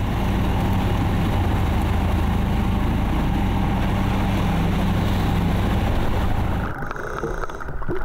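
Motorboat engine running steadily at cruising speed, with water rushing past the hull. About seven seconds in it gives way to a quieter, muffled underwater sound.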